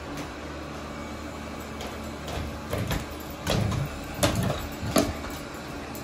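Robot vacuum running with a steady hum. Partway through, a cluster of short, louder bumps and scuffs cuts in, the sharpest near the end.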